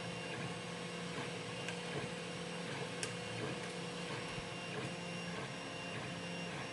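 3D printer running steadily, its stepper motors giving a hum with a few held tones, with one faint click about three seconds in.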